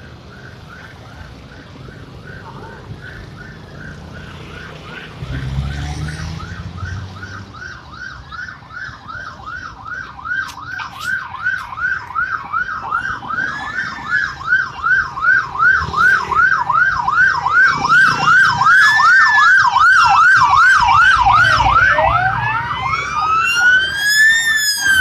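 Sirens of an approaching fire and rescue convoy: a fast yelp siren growing louder as it nears, joined about halfway by a slower wailing siren sweeping up and down, over passing traffic.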